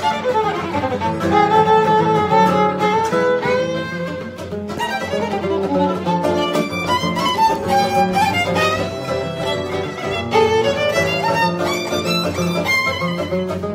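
Violin and button accordion playing a csárdás together, the violin bowing a fast-moving melody over the accordion's accompaniment.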